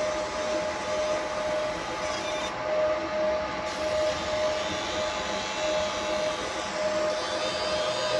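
Engraving machine running: a steady fan-like hiss with a thin whine that cuts in and out every second or so as it works.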